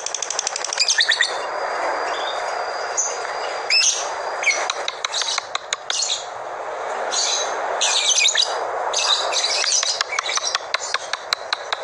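Labet songbird calling: quick chirps and trills, a held high whistle early on, and a fast run of ticking notes near the end, over a steady hiss.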